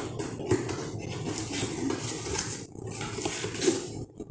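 Cardboard appliance box being opened by hand: the flaps are pulled up and the packaging rustles and scrapes in several bursts, with a few sharp clicks.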